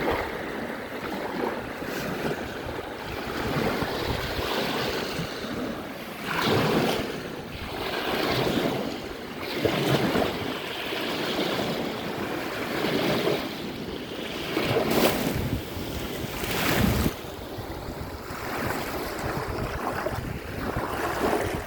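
Waves breaking and washing ashore in a strong wind, the surf swelling and falling every few seconds, with wind buffeting the microphone. One loud surge late on cuts off suddenly.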